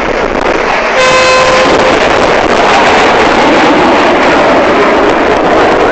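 Red Arrows BAE Hawk jets roaring overhead during a low display pass, their jet noise swelling about a second in and staying loud. A short horn toot sounds at the same moment the roar comes up.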